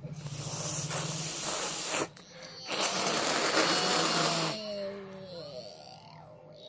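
A woman sneezing repeatedly with forceful, hissing breaths: two long noisy bursts, the second trailing into a falling voiced sound.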